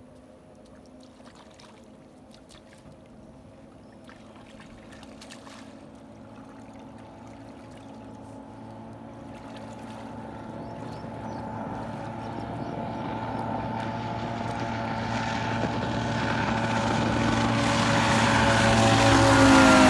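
2000 XDC Bullet bass boat with a 300XS outboard running at full speed, about 96 mph, under a full tournament load, approaching from far off: its steady engine tone grows gradually from faint to loud and is loudest near the end.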